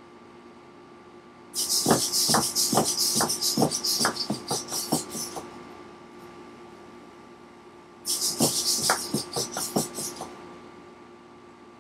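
A hexapod robot's eighteen Tower Pro MG90S micro servos whining as it walks, its feet knocking on a hardwood floor about two to three times a second. A walk of about four seconds, then after a pause a shorter one of about two seconds.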